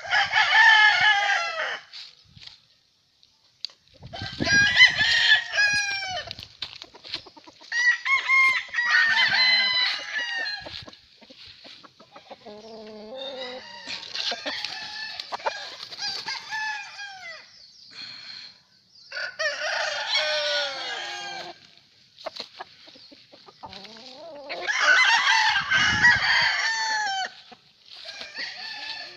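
Gamefowl roosters crowing one after another, about seven crows of roughly two seconds each, every four to five seconds, with some clucking between them.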